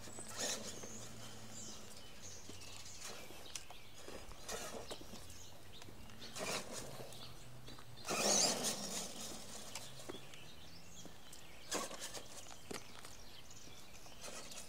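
Traxxas E-Maxx electric RC monster truck driving slowly on asphalt, its tyres scuffing and crunching grit in several short bursts as it moves off and turns, the loudest about eight seconds in, over a faint low motor hum.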